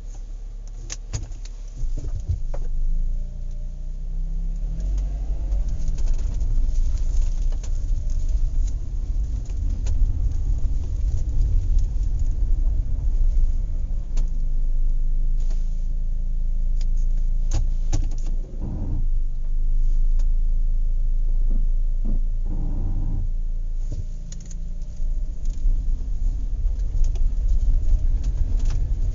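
Inside a car driving on a rough road: a steady low engine and road rumble, with loose things rattling and clinking as the car is shaken, and a couple of louder knocks about two-thirds of the way through.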